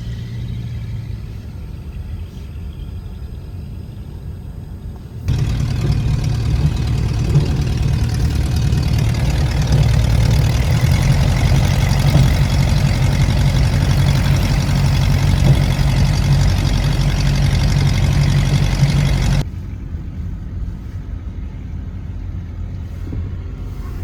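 Cessna Skyhawk's piston engine and propeller running steadily at low taxi power, heard from inside the cabin. About five seconds in the sound abruptly becomes louder and hissier, and it drops back just as suddenly a few seconds before the end.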